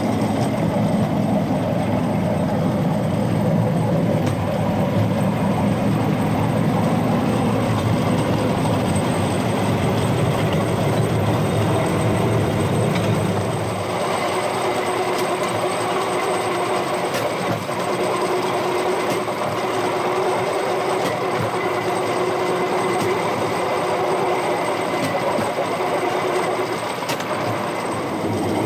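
A rail-mounted golf cart running along the track, its wheels rumbling steadily on the rails with occasional clicks. About halfway through, the deep rumble drops away and a lighter, higher hum takes over.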